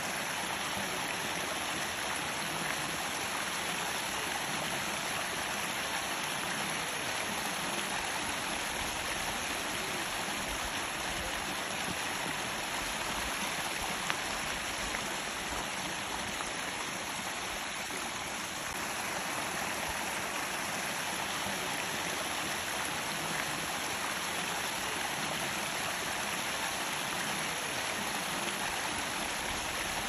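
Steady rushing of a stream: an even, unbroken hiss of running water.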